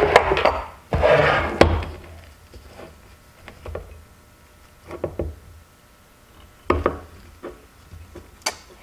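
Aluminium bait-injection mould halves and metal C-clamps handled and set down on a wooden workbench. There are two spells of loud clatter and scraping in the first two seconds, then a few scattered knocks and clicks as the mould is opened.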